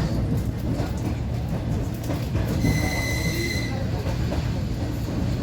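Passenger train running, heard from inside the carriage: a steady low rumble of the wheels on the rails, with a brief high squeal lasting about a second midway.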